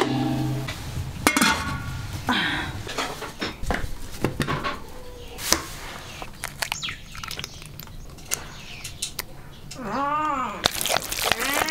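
Kitchen clatter: scattered clicks and knocks of utensils and dishes. Near the end an animal calls once with a cry that rises and then falls.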